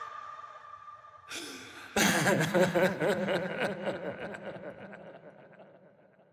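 A person's laughter breaks in suddenly about two seconds in and slowly fades away.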